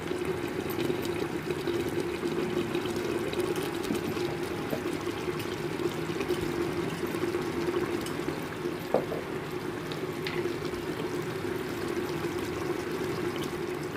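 Mutton simmering in yogurt and oil in an open pressure cooker, bubbling and sizzling steadily. A single light knock about nine seconds in.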